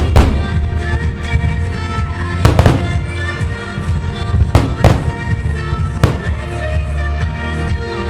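Fireworks shells bursting with sharp bangs, about five of them spread through the moment, over a dance-pop song played loud through outdoor loudspeakers with a heavy bass beat.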